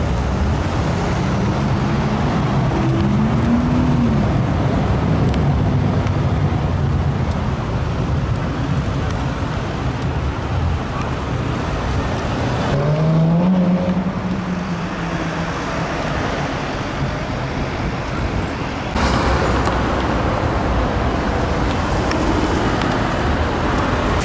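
City road traffic: a steady rush of cars driving past, with a car's engine note rising as it accelerates about three seconds in, and again, louder, about thirteen seconds in.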